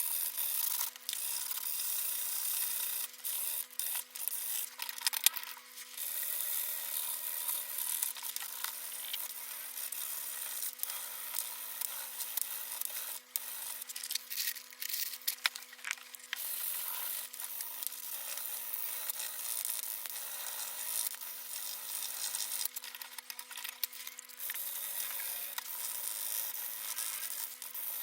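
Steady rasping and scraping of hand abrasive work, such as a file or sandpaper worked against a surface, with several brief pauses.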